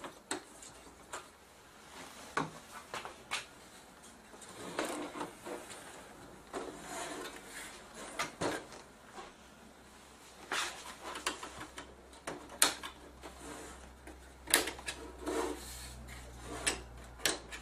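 Irregular clicks and taps with short scraping between them, as a flat-bladed screwdriver pries the plastic clips of an LC320WXN LCD panel's plastic frame loose along its side.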